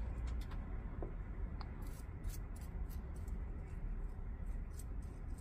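Metal tweezers picking old soil out of a succulent's roots: light scratching, and a scatter of small clicks as grains of grit and potting soil drop onto the tray. The clicks come more often from about two seconds in.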